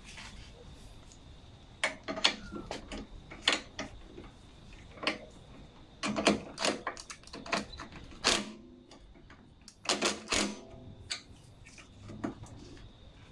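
Irregular metallic clicks and clinks of a small bolt, washer and nut being fitted and tightened with tools while the throttle control is mounted on the mower, in clusters with quiet gaps.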